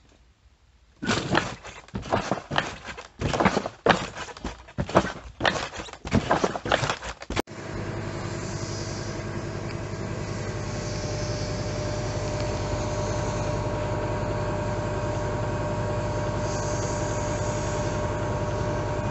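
About six seconds of loud, irregular rustling and buffeting. Then it cuts to a laser cutter running while it cuts a foam board: a steady machine hum with a constant tone.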